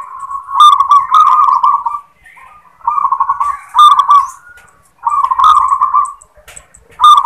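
Local zebra dove (perkutut) singing its 'klar ketek kuk' song: four rolling, warbled coo phrases about two seconds apart, the last one cut off at the end. A song that opens with 'klar' is the type keepers seek out.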